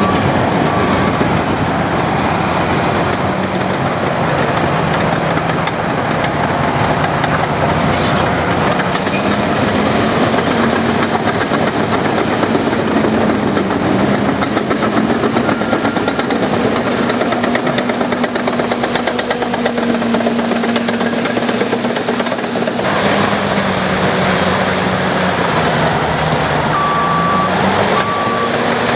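Heavy construction machine's diesel engine working, its pitch rising and falling with the load. A reversing alarm beeps steadily at the start and again near the end.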